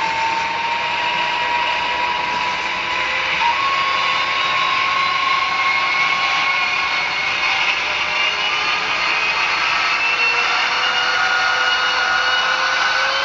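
Brawa N scale BR232 model diesel locomotive's DCC sound decoder playing its diesel engine sound through the tiny onboard speaker, a steady tinny drone with whining tones that step up in pitch about three seconds in and rise slowly later on.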